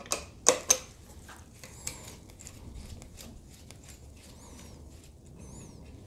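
A wrench working the 17 mm handle bolt loose on a Bosch Brute jackhammer: three sharp metal clicks in the first second, then lighter clicks and taps of metal on metal. Faint high chirps come in about two, four and five seconds in.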